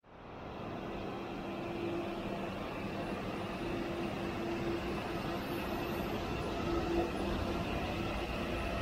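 Blue-and-white regional electric multiple-unit train running at the platform: a steady hum and rumble, with a faint tone that comes and goes.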